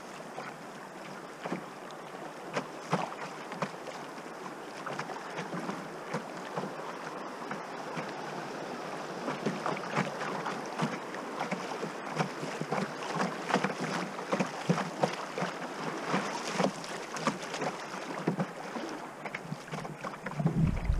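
River current rushing past a moving canoe, with water lapping and splashing against the hull in many small irregular slaps. It grows a little louder over the stretch, and wind buffets the microphone right at the end.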